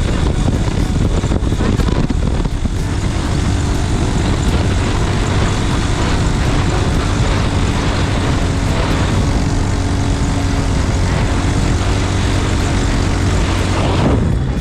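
An engine drones steadily, with rushing wind noise over it.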